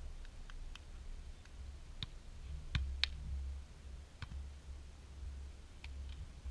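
Faint, sharp slaps of hands and forearms striking a beach volleyball during a rally, irregularly spaced, the loudest about three seconds in, over a low steady rumble.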